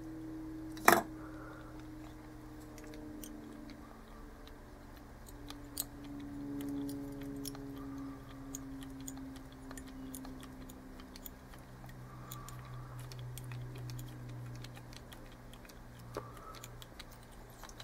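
Faint scattered ticks and clicks of fly-tying thread being wrapped with a bobbin over stiff monofilament on a small hook in a vise, with one sharper click about a second in, over a faint low hum.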